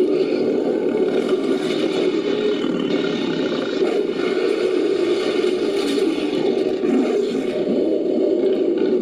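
Designed monster sound effect for a fictional pterosaur, layered from film-monster and animal recordings: a continuous, steady, raspy growl with no pauses.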